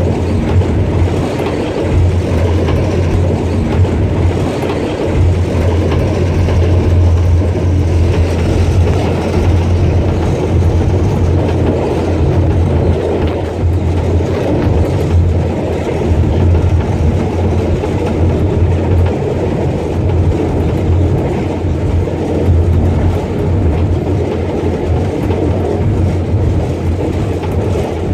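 A ZCU-30 diesel-electric locomotive heard from inside its cab while running at speed. Its diesel engine gives a loud, steady low drone over the rumble of the train on the track.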